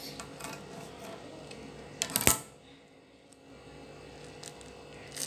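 A sharp clatter about two seconds in, as the plastic-handled scissors are set down on the stone countertop, with faint rustling as the wet pad is handled before and after.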